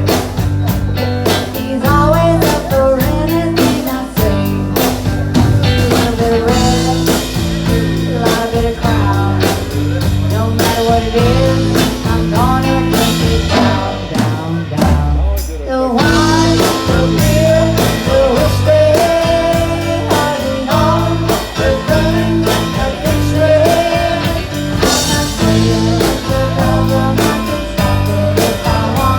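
Live band playing a blues-rock number with electric guitar, drums and a singer. About halfway through the band briefly drops out to a single held low note, then comes back in.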